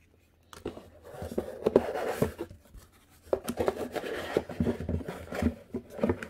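Hands handling a cardboard product box: rustling, scraping and light knocks of cardboard, starting about half a second in, with a short lull near the middle.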